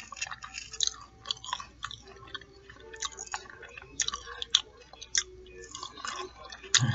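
Close-miked mouth chewing of a meal of fried fish nuggets and fries, with irregular wet clicks and small crunches.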